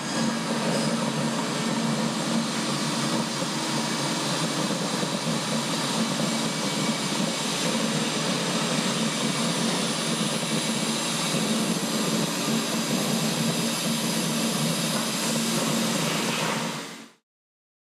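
Hitachi Seiki Super Hicell 250 CNC turning and milling centre running with its spindle spinning at speed: a steady, loud whirring rush with a low hum, cutting off suddenly near the end.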